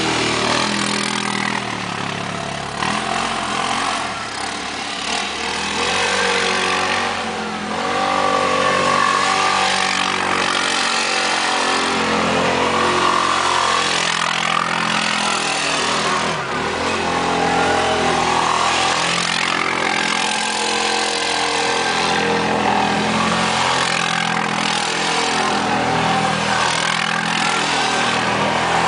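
CFMoto 500A 4x4 ATV's single-cylinder engine revving up and down as the quad is driven in circles through deep snow.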